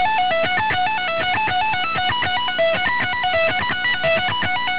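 Electric guitar playing an extremely fast pentatonic sequence in F sharp minor: a continuous run of rapid, even notes stepping up and down in pitch.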